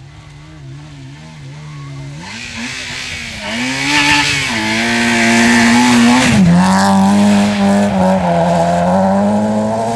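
Small hatchback rally car's engine revving hard as it approaches through snow and slush, growing louder, with the rush of tyres throwing up slush. As it passes close, about six and a half seconds in, the engine note drops, and it runs on, moving away.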